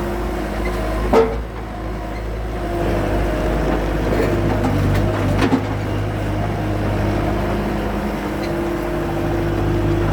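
Skid steer engine running steadily, with a sharp knock about a second in and a couple of short clicks about five and a half seconds in.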